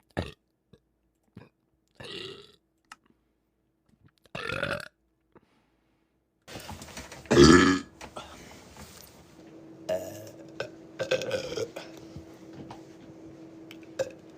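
Several separate burps from young women, a few seconds apart, the loudest about halfway through. A faint steady hum runs under the second half.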